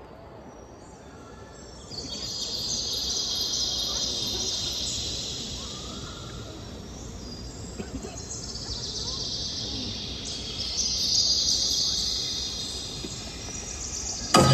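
Large arena crowd screaming, swelling about two seconds in and again about eleven seconds in, over faint bird chirps from a nature soundscape.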